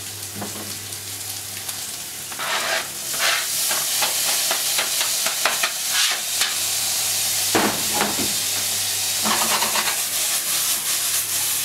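Diced vegetables sizzling in oil in a stainless-steel frying pan. The sizzle gets louder about two seconds in as diced tomatoes are scraped in from a cutting board, with scrapes and knocks of stirring and of the pan being moved, the loudest knock about two thirds of the way through.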